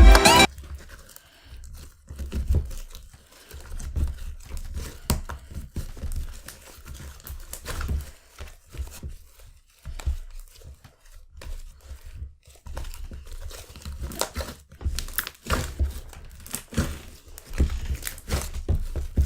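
Homemade glue slime being mixed and worked by hand, giving irregular sticky crackles and soft knocks. The slime is still sticky and under-activated.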